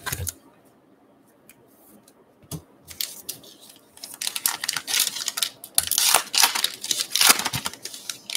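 Foil wrapper of a Topps Gypsy Queen baseball card pack being crinkled and torn open by hand, in quick bursts of crinkling rustle that start about three seconds in and run until near the end.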